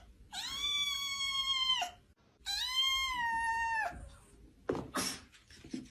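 Cat meowing: two long drawn-out meows one after the other, then a short noise about five seconds in.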